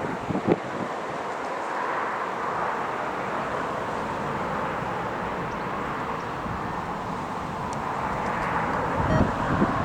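Jet aircraft engine noise, a steady rush that swells a little twice, with wind buffeting the microphone about half a second in and again near the end.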